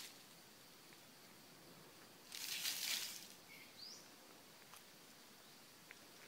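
A brief rustle of dry leaves about two seconds in, lasting about a second, followed by a short rising bird chirp, against a faint forest background.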